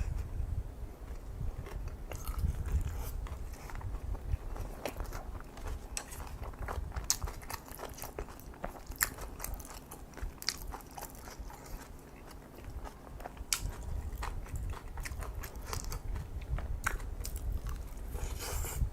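Close-up eating sounds of a person chewing kimchi fried rice and kimchi, with many sharp, irregular mouth clicks over a low rumble.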